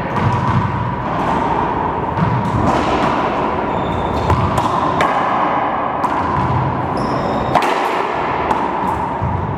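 Racquetball rally in an enclosed court: a series of sharp cracks as the ball is struck by racquets and rebounds off the walls and floor, each with a short echo, over steady background noise.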